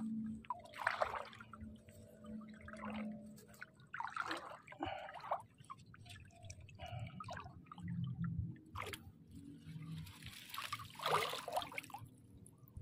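Water splashing and dripping in irregular bursts as a hand works in the shallow water at the bank. The loudest splashing comes near the end.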